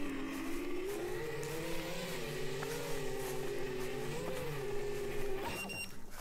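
7-inch FPV quadcopter's brushless motors and propellers whining at a steady hover, the pitch wavering slightly as the throttle shifts. The whine cuts off abruptly about five and a half seconds in as the quad drops to the ground.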